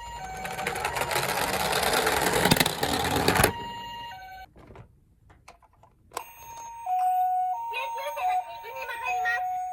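Toy ambulance miniature cars' electronic two-tone hi-lo siren (pee-po). For the first three and a half seconds it plays over the loud rattling rumble of the toy's wheels rolling down a slope. After a short near-silent gap a siren alternates steadily high-low again with a small electronic voice over it.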